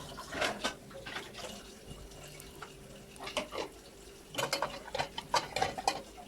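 Plates being set into a dishwasher rack: scattered light clinks and knocks of dishes, coming thicker in the second half, over a faint steady hum.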